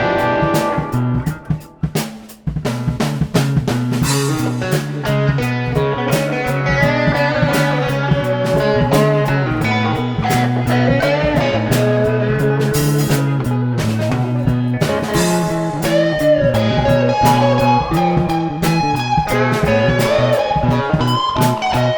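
Instrumental progressive rock: a direct-recorded electric guitar (a Harley Benton PRS copy through a Tech 21 SansAmp GT2) plays melody lines over a Fender Jazz Bass line and a drum kit. It stops briefly a couple of times in the first two and a half seconds, then plays on without a break.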